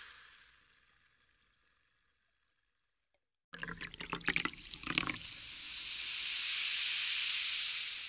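Carbonated soda pouring and fizzing: a fizz dies away to silence, then about three and a half seconds in a new pour starts with splashing glugs, settling into a steady fizzing hiss of bubbles.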